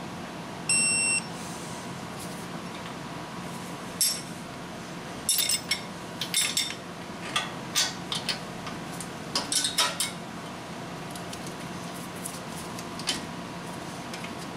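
A digital torque wrench gives one short beep on a Honda Civic strut bolt as the set torque of 67 foot-pounds is reached. Then comes a run of irregular sharp metal clicks and clinks from the wrench's ratchet head and socket on the bolts.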